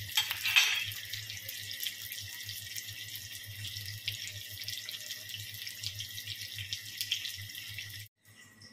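Breaded chicken burger patties sizzling and crackling in hot oil in a frying pan. The sizzle is briefly louder about half a second in, and it cuts off abruptly near the end.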